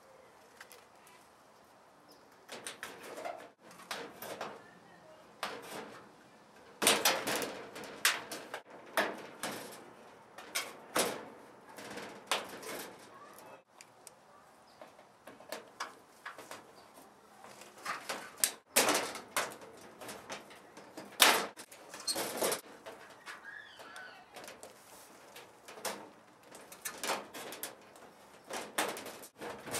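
Tin snips cutting through thin aluminum shed siding: a long run of sharp, irregular snips and crunches of the sheet metal in uneven bursts with short pauses between.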